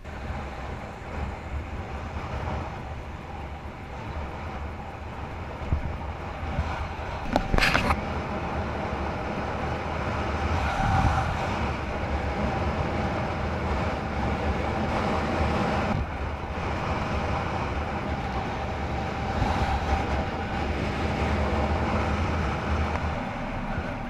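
Steady mechanical rumble of a vehicle under way, with a constant whine over it and a single sharp click about seven and a half seconds in.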